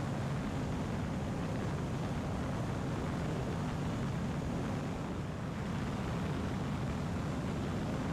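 Steady drone of a Zenith 750 Cruzer light aircraft in cruise flight, its Viking 130 engine and propeller mixed with airflow noise, heard sped up and turned down.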